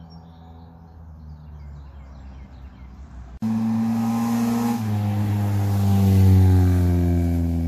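Straight-piped Honda Accord LX four-cylinder with eBay headers driving past: a faint engine with birds chirping, then a sudden jump to a loud, raspy exhaust note about three and a half seconds in. It is loudest about six seconds in, and the note falls in pitch as the car passes.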